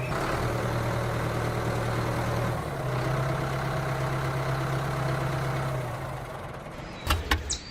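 Engine idling steadily, a low even hum that fades away about six seconds in. A few sharp clicks follow near the end.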